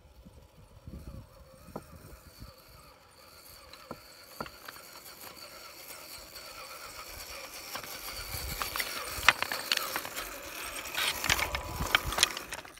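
RC4WD Trail Finder 2 scale crawler truck driving over loose slate: its motor and gearbox make a steady high whine while the tyres knock and clatter slate pieces. It grows louder as it comes close, with sharp slate clicks loudest in the last few seconds.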